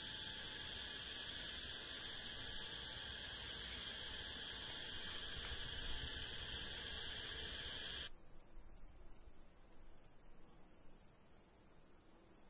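Steady chorus of crickets or similar insects, a continuous high shrill. About eight seconds in it cuts off abruptly, leaving a thinner high steady tone with rapid repeated chirps.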